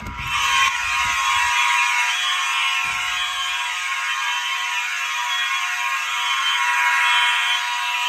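Several fire alarm horns and horn-strobes sounding together. The dense mix of steady electronic tones and repeating falling sweeps jumps sharply louder at the start and then holds steady.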